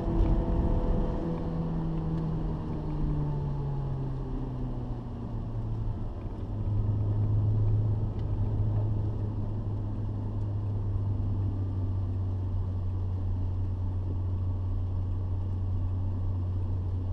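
Renault Clio 182's 2.0-litre four-cylinder engine heard from inside the cabin, its revs falling over the first six seconds, then holding steady.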